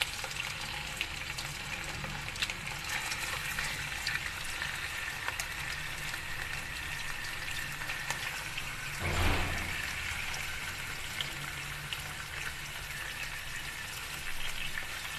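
Raw quail frying in hot oil in a karahi: a steady sizzle with fine crackling. A brief louder bump about nine seconds in.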